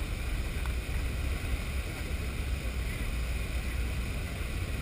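Steady low rushing rumble of flash-flood water pouring down the canyon walls, muffled through a GoPro's waterproof case.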